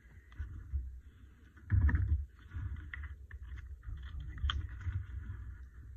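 Desk handling noise from a postcard and a paint pen being picked up and moved about: low rumbling bumps with a dull thump about two seconds in and a few light clicks.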